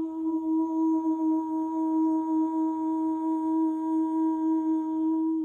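A voice chanting the Qigong kidney healing sound 'choo': a short 'ch' and then one long 'oo' held steady at a single pitch for about six seconds, cutting off sharply at the end.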